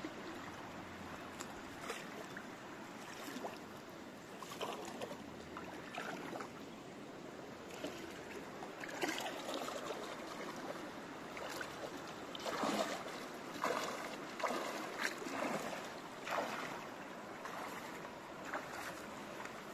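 Steady rush of a shallow, rocky creek, with sloshing splashes of legs wading through the water. The splashes come thicker and louder about halfway through.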